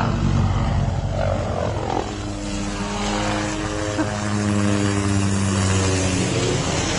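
Small light helicopter flying low overhead, its rotor and engine making a steady buzzing drone whose pitch shifts about two to three seconds in as it passes.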